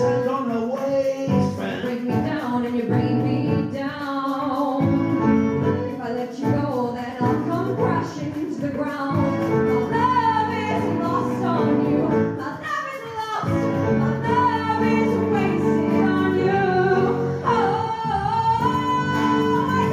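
A woman singing a musical-theatre ballad over instrumental accompaniment, holding several long notes in the second half.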